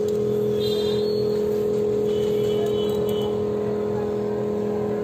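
LCD separator machine's vacuum pump running with a steady hum.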